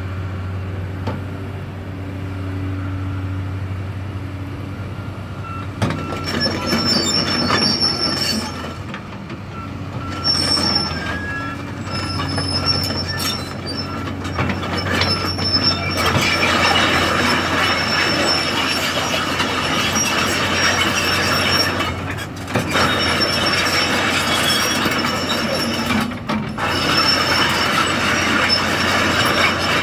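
Excavator's diesel engine running steadily, then from about six seconds in a loud metallic squealing and clanking from its steel tracks and undercarriage as the machine moves. The squeal grows louder and harsher about halfway through.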